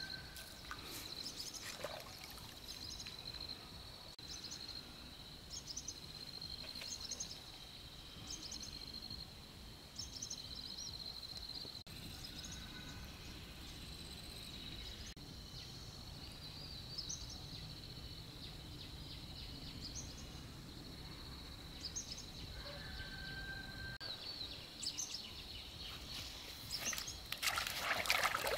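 Outdoor ambience: a steady high-pitched insect drone with short high chirps over it, and a louder rush of noise near the end.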